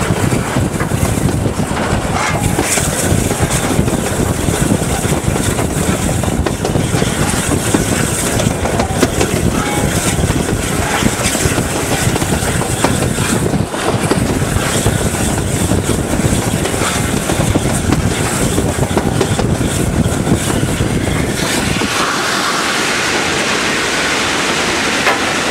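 Footplate sound of BR Standard Class 8 4-6-2 steam locomotive No. 71000 running along the line: a loud, continuous rattle and rumble of the moving engine with wheel clatter over the rails. About 21 seconds in, the low rumble falls away and a steady hiss takes over.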